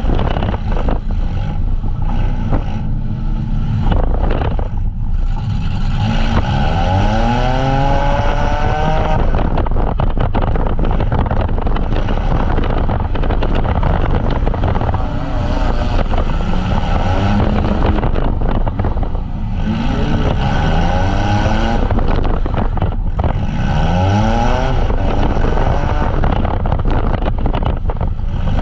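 Demolition derby van engines running hard under full throttle, revving up in rising whines three times, with scattered knocks throughout.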